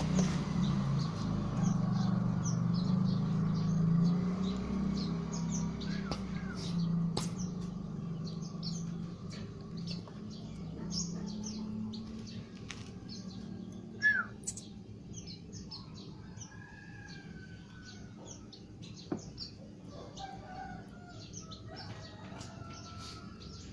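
Young birds chirping in short, thin tweets with a few longer whistled notes, among small clicks and rustles. A low steady hum fades out over the first half.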